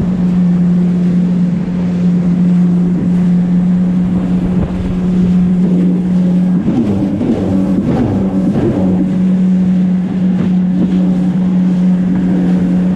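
Jet ski engine running steadily at speed, with a rush of wind and water spray over the hull. About halfway through, the engine note wavers up and down for a couple of seconds, then settles again.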